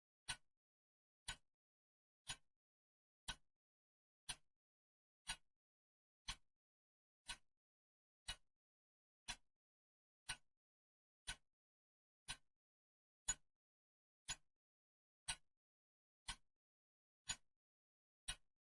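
Clock ticking steadily once a second, each tick a short sharp click with dead silence between.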